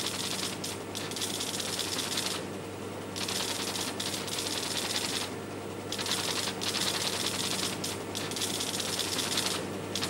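Line printer of a 1960s UNIVAC computer rattling off its printout while the Fortran program is being compiled: dense, rapid hammering that stops briefly about two and a half, five and a half and nine and a half seconds in. A steady low hum runs underneath.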